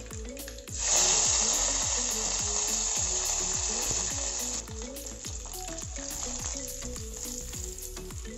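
Hot oil sizzling as fresh curry leaves drop into it: a sudden loud sizzle about a second in that slowly dies down, then drops to a lower, steady frying hiss after about four and a half seconds.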